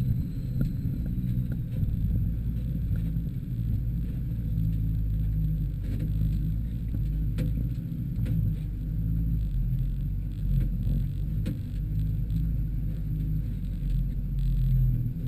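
Volkswagen T3 Syncro's engine running at steady revs, heard from inside the cabin while driving over a rough forest track, with a low rumble and a few short knocks about six to twelve seconds in.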